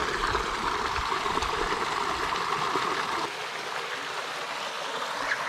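A small mountain stream running steadily over low rock cascades, splashing and trickling. About three seconds in, the low rumble drops away and the water becomes slightly quieter.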